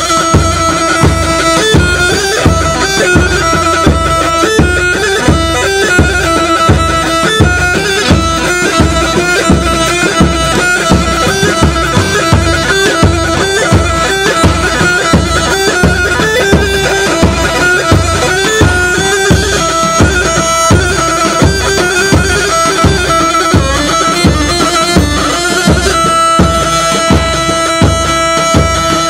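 Traditional davul-zurna music: a loud, shrill zurna playing a melody over a steady beat on the davul bass drum.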